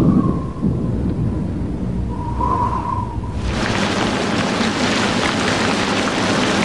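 Low rumble of thunder, then heavy rain starts abruptly about halfway through and carries on as a steady, dense hiss of downpour.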